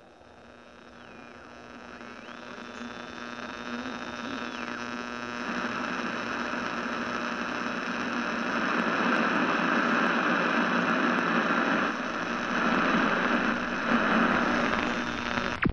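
Electronic hum and static noise swelling steadily louder, with two high gliding tones in the first few seconds, then cutting off abruptly at the very end.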